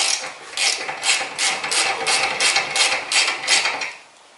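Hand ratchet wrench clicking in quick, even strokes, about three to four clicks a second, as a 19 mm nut on the outer tie rod end is backed off. The clicking stops shortly before the end.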